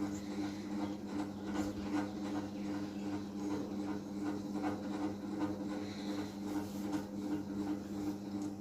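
A beagle puppy snoring softly, faint raspy breathing over a steady low hum.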